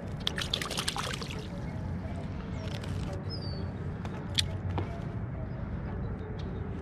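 Water sloshing and trickling around a float tube, with a cluster of small clicks in the first second and one sharp click a little past the middle as a fish in a landing net is handled with pliers.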